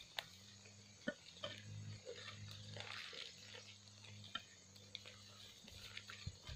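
Faint outdoor background with a low hum that comes and goes and a few sharp clicks, three of them standing out.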